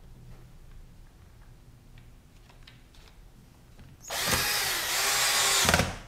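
Cordless drill/screwdriver running for about two seconds, starting about four seconds in, driving a screw into the air rifle's stock. Before it, only a few faint handling clicks.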